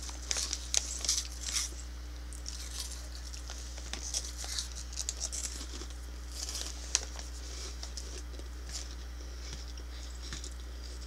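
Crinkling of a plastic cheese curl bag as a hand rummages in it, along with crunchy cheese curls being chewed. It comes in scattered bursts that thin out in the second half.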